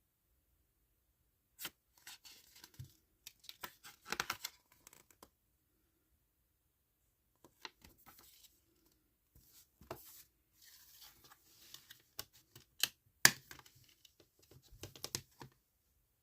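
Blu-ray packaging being handled and torn open: irregular tearing and crinkling rustles broken by sharp clicks, with a short pause partway through and one loud click a little after the middle.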